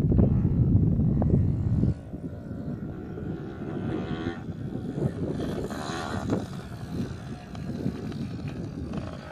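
Yamaha PW80 two-stroke single-cylinder dirt bike engine running and revving up and down as it rides across the field, heard from a distance. A heavy low rumble of wind on the microphone covers the first two seconds, then cuts off suddenly.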